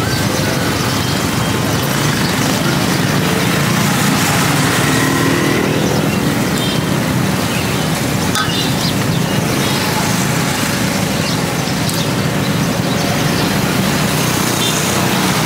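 Steady street noise of a busy market: traffic and motorbikes running past, with faint voices and chatter mixed in.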